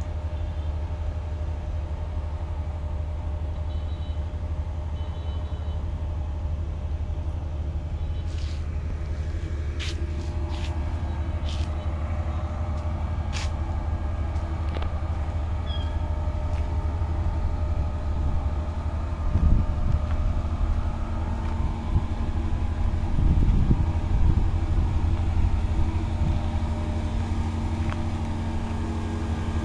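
A steady low motor rumble with a faint steady hum above it, joined by a few sharp clicks around ten seconds in and some louder low thumps around twenty seconds in.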